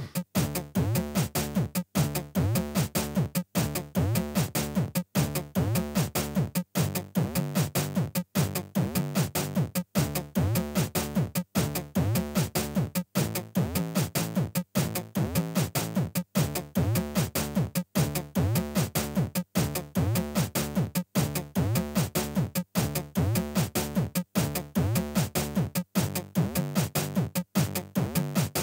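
Background electronic music made on a Teenage Engineering Pocket Operator: a drum-machine beat with synth notes in a short loop that repeats about every one and a half seconds.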